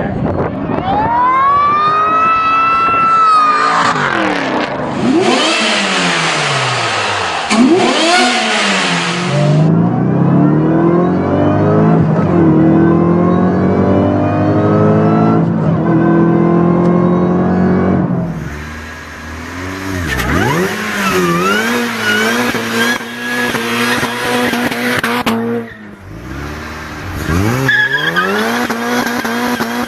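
Supercharged car engines revving hard in a run of short clips, the supercharger's high whine climbing and falling with engine speed. A harsh hiss sits over the engine for several seconds early on, and the sound cuts abruptly from one car to the next.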